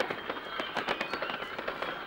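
Fireworks crackling and popping in quick, irregular succession, loudest at the start.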